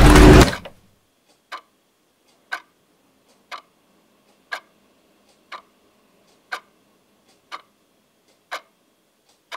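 Music cuts off within the first second, then a clock ticks once a second, the strokes alternating louder and softer.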